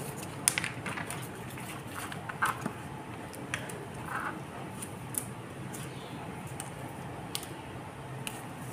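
Heat-transfer vinyl being weeded by hand: waste vinyl peeled off its carrier sheet with scattered crackles, clicks and plastic rustles, over a faint steady low hum.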